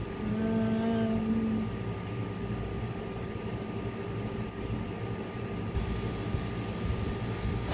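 Steady background hum with a thin, constant high whine, and a short hummed 'mm' from a woman's voice lasting about a second, just after the start.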